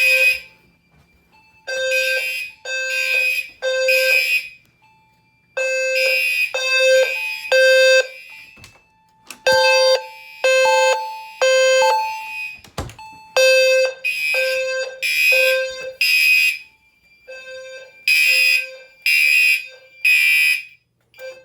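Fire alarm horns, with a deep low-frequency sounder, sounding the temporal-3 evacuation pattern: three short blasts, a pause, then three again, over and over. The alarm was set off by a magnet test of the smoke detector.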